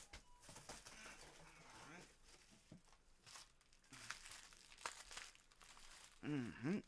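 Hard drives being picked up and handled: soft rustling with scattered light clicks and knocks, and a brief hummed voice sound near the end.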